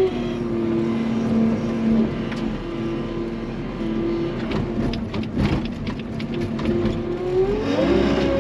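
A vehicle engine running, its pitch stepping up and down, with a rev rising near the end. There is some rattling in the middle.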